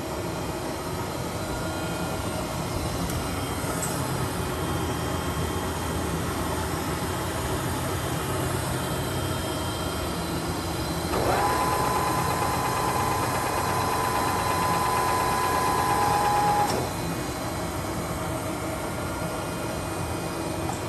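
Toshiba Shibaura TX-16 vertical boring mill running under power with a steady hum. About halfway through, a motor whine rises quickly in pitch, holds steady for about five seconds as the loudest sound, then cuts off.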